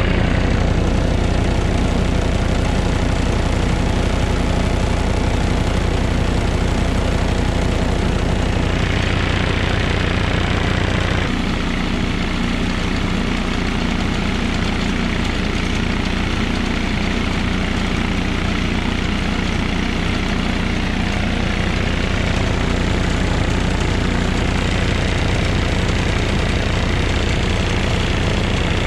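MEP-802A military diesel generator running steadily under a heavy electrical load, a little over 100%, from plugged-in heaters and hair dryers.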